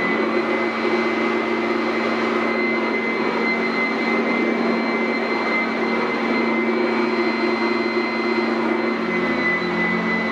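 Sanitaire SC899F commercial upright vacuum running steadily over carpet: a continuous rush of air with a steady high motor whine.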